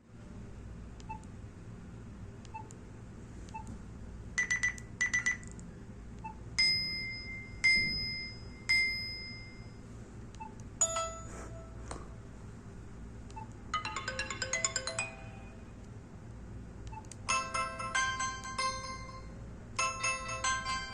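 BlackBerry Curve 9300's preloaded ringtones playing one after another: short electronic tones and melodies. There are a couple of quick buzzy trills, then three single tones that ring out and fade, then rapid runs of notes, with faint clicks between them.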